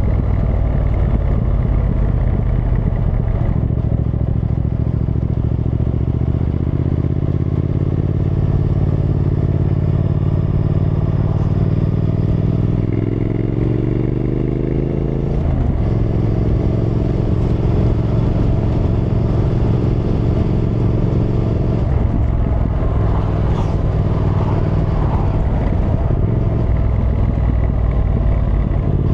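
Triumph Thruxton R's 1200 cc parallel-twin engine running on the move. It holds a steady note, then its revs climb for about three seconds around the middle and drop sharply, and the note shifts again later.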